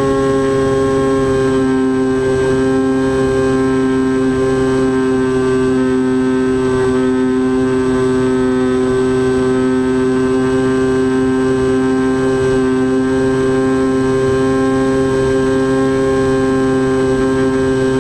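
An FPV model aircraft's motor and propeller, heard through its onboard camera, running at a steady throttle. It makes a loud, even buzzing whine at a fixed pitch, after a slight drop in pitch at the very start.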